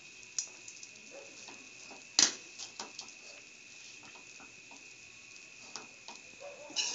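Metal spoon stirring ragi vermicelli in a metal kadai, scraping and clinking against the pan in scattered taps, with one louder knock about two seconds in.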